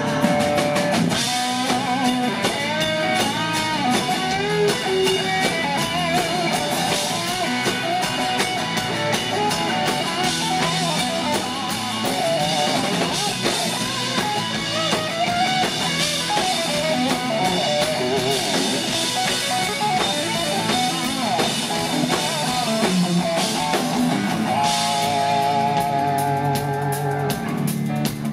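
Live rock band playing an instrumental passage without vocals: drum kit, bass, strummed acoustic guitar and electric guitars, with a wavering lead guitar line over the top.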